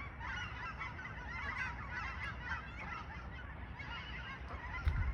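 A flock of waterfowl calling as they fly over, many short calls overlapping throughout.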